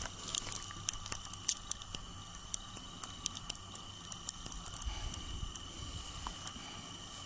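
Faint scattered clicks and soft rubbing as a lion noses at an inflatable plastic globe, over a steady faint high-pitched whine.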